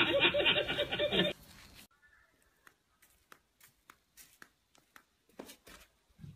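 Voices with chuckling that cut off abruptly a little over a second in, followed by near silence with a few scattered faint clicks.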